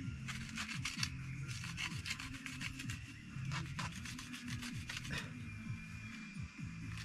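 Plastic film rustling and scraping in quick irregular strokes as planting holes are cut into it, with quieter background music underneath.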